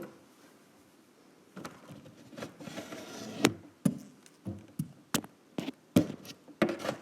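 A fork stirring glue and contact-solution activator in a bowl, knocking against the bowl with irregular taps that begin about a second and a half in, as the slime mixture starts to come together.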